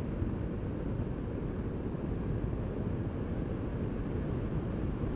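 Steady riding noise on a 2008 BMW R1200 R: a low wind rumble on the helmet-camera microphone, with the boxer-twin engine running at a steady cruising speed.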